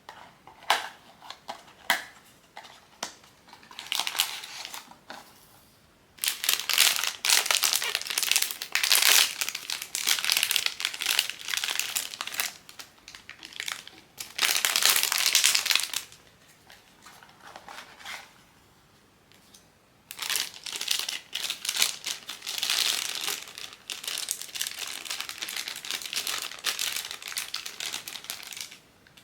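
Blind-box packaging being handled and unwrapped, crinkling and rustling: a few sharp clicks in the first couple of seconds, then long spells of crinkling.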